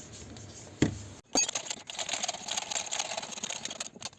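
A sharp metal knock, then a run of quick metallic clicks and rattles as metal parts are handled while the new rear wheel hub bearing is fitted.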